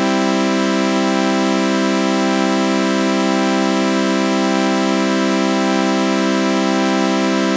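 A synthesized sawtooth-wave chord held as one steady, buzzy, organ-like drone. A flanger gives it a slow, slight wavering.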